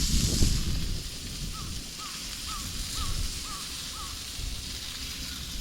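A bird calling: a quick run of about seven short, identical notes, roughly two a second, starting about a second and a half in, with a few fainter notes near the end, over a steady low outdoor rumble.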